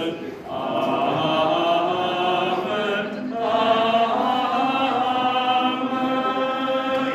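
Voices singing a slow, chant-like table grace in unison. It runs as two long phrases of held notes, with a brief break about three seconds in.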